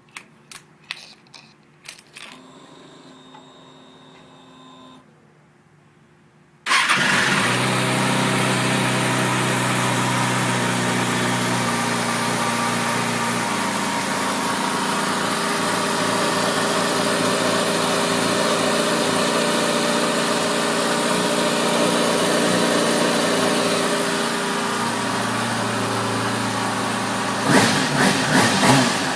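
A few clicks and a brief steady hum, then a sport motorcycle's engine starts suddenly about seven seconds in. It runs at a fast idle whose pitch slowly settles lower, with a few sharp knocks near the end.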